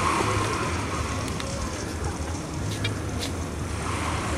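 Outdoor crowd ambience: distant chatter over a steady low rumble, with a few faint clicks about three seconds in.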